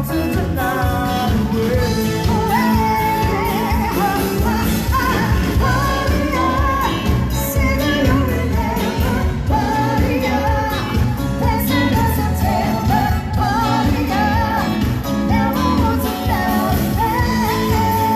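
Pop song with a singing voice over a full band backing and a steady beat, playing loud without pause.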